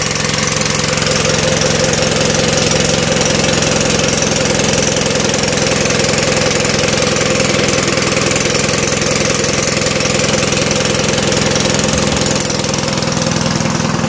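Small engine running steadily at a constant speed, typical of the motor pump used to drain a fish pond.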